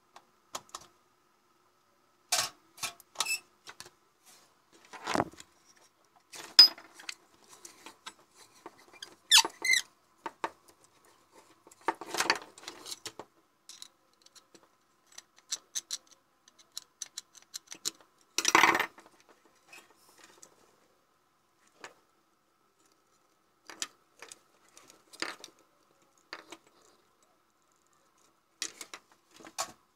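Scattered small clicks, taps and short scrapes from handling a compact fluorescent bulb's plastic base, its circuit board and the hookup wires attached to it. The clicks are sharpest about a fifth of the way in, and a longer scrape comes a little past halfway.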